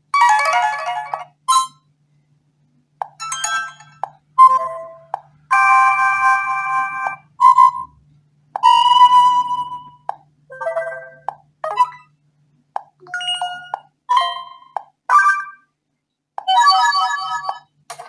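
A BQ Contact smartphone's speaker playing its preset message and notification tones one after another: about a dozen short chimes and jingles, each a different melody lasting a second or less, with short silences between them.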